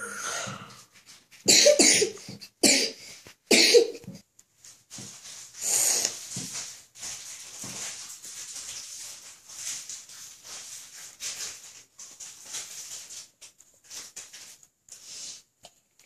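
A person coughing, a few sharp coughs in a cluster about two to four seconds in and one more near six seconds, followed by quieter breathy noises.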